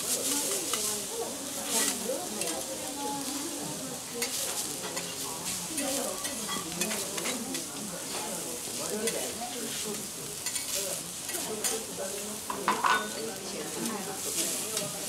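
Food sizzling on a steel teppanyaki griddle while metal spatulas scrape and tap across the hot plate, with a sharp metallic clink about thirteen seconds in.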